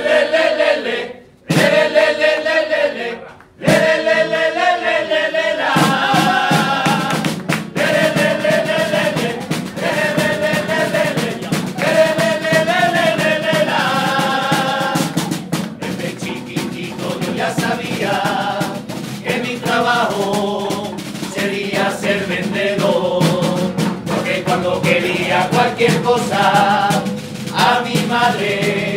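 Chirigota, a Cádiz-carnival comic group of men, singing together in unison. The singing breaks off briefly twice in the first few seconds, and drums join about six seconds in and keep a steady beat under the voices.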